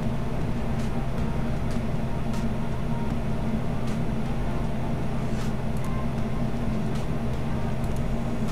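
A steady low hum with several faint, sharp clicks scattered through it.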